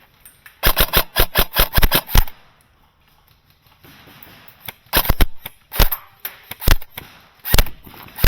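Airsoft guns firing: a rapid burst of about ten sharp shots, a pause of a couple of seconds, then a short cluster and scattered single shots about a second apart.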